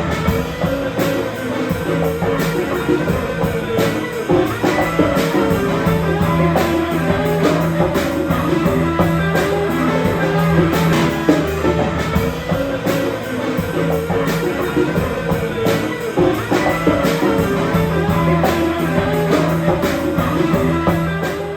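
Background rock music with electric guitar and a steady drum beat, fading out near the end.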